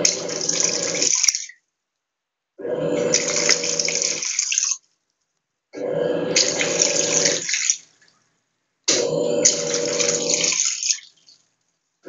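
Electrolux LTE06 top-loading washing machine agitating a load in its wash cycle: spells of about two seconds of motor hum and churning water, each followed by a stop of about a second, repeating about every three seconds.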